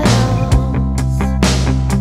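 Rock band music: electric guitar and bass holding chords over a steady drum kit beat, with no vocals.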